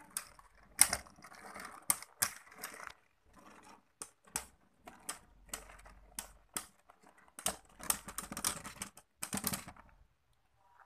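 Two Beyblade spinning tops clacking against each other and the wall of a plastic stadium as they battle, in irregular sharp clicks. A quick flurry of clicks comes near the end, then the clicking stops as the tops come to rest.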